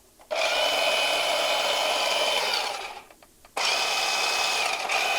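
Toy RC car's small electric drive motor and gears running twice, each time for about two and a half seconds with a steady whine, stopping suddenly and starting again a little under a second later; very quiet.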